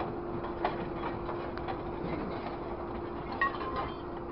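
Scrap metal clanking and ringing as a grapple truck's orange-peel grapple closes on and lifts a pile of scrap, over the steady drone of the truck's engine and hydraulics. A few sharp clanks come through, the loudest about three and a half seconds in, with a short metallic ring after it.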